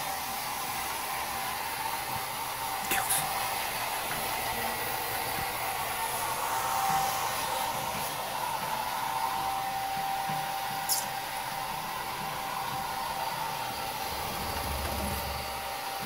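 Handheld hair dryer running steadily on a wet dog's fur: a constant rushing hiss with a thin steady tone from its motor.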